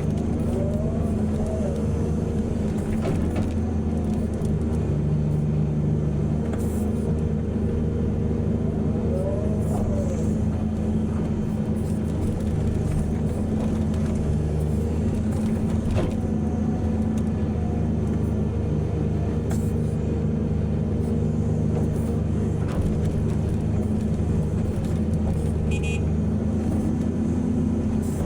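Heavy diesel engines of a large excavator and haul trucks running steadily at a mine loading site, with a few faint knocks over the top.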